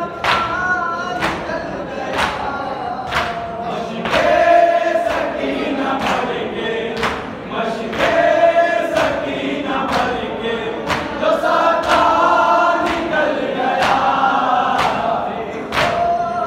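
Men chanting a Muharram noha in chorus, with a steady beat of chest-beating (matam) landing about once a second.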